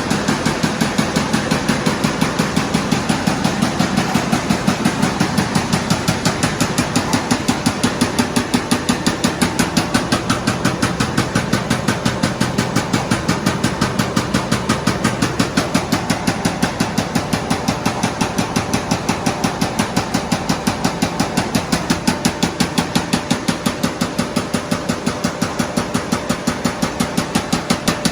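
1400 mm paper-roll cutting machine (CHM-1400) running, with an even, rapid clacking of about three to four a second over a steady machine noise.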